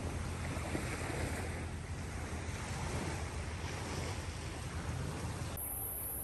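Outdoor rush of wind and sea surf, with wind rumbling on the microphone. A little before the end it cuts to a quieter scene with a steady high-pitched drone.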